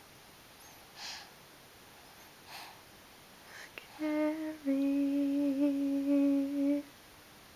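A voice humming two steady notes: a short one about four seconds in, then a slightly lower one held for about two seconds. Before it there are only a few faint, soft puffs of breath-like noise.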